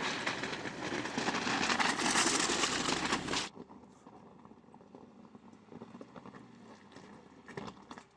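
Tyres of a Mercedes G-Class SUV crunching and crackling over loose rocks and gravel, loud and close, then dropping suddenly about three and a half seconds in to a fainter crunching with scattered stone clicks.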